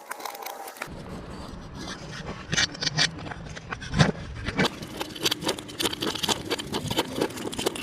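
Tools and metal parts clicking, knocking and scraping during wheel-hub work, with one sharp knock about four seconds in.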